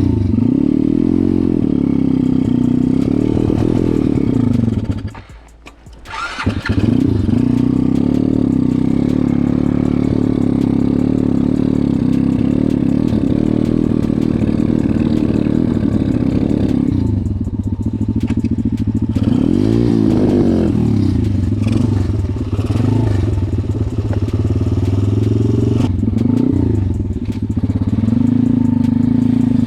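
A 140cc pit bike's single-cylinder four-stroke engine running unevenly, its pitch wavering. The engine keeps stalling, and the rider can't tell whether it is getting too little or too much. About five seconds in it cuts out for about a second, then runs again, and later the revs rise and fall several times.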